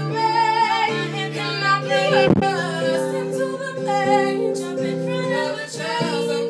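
Women singing a pop ballad with guitar accompaniment, the voices sliding and holding notes over sustained chords.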